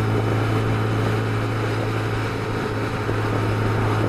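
Motorcycle engine running at a steady cruising speed, a constant low hum with wind and road noise, heard from the rider's seat.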